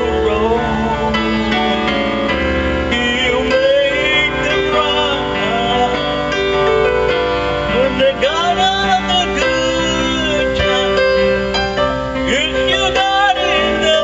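A man singing into a handheld microphone, amplified through a PA, over instrumental backing music.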